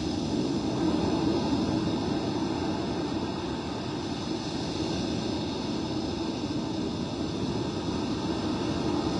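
Steady rush of wind and surf, heard muffled and boxy through a plastic underwater camera housing.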